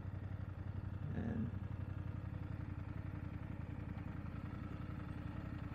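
BMW F 750 GS motorcycle's parallel-twin engine running steadily with an even low hum, with no revving.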